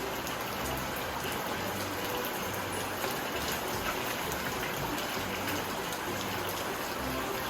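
Steady rushing water noise, with soft background music underneath.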